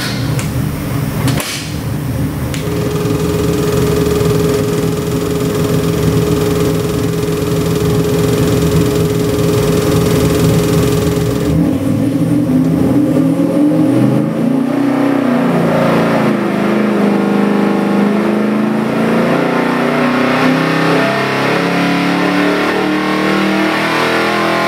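Chrysler 408 cubic-inch stroker small-block V8 with a Weiand tunnel ram and Holley XP carburettors running on an engine dyno. It runs steadily at low revs, with a steady tone over it, for about the first half. It is then pulled through a dyno sweep, rising in pitch toward about 5,000 rpm and close to 500 hp.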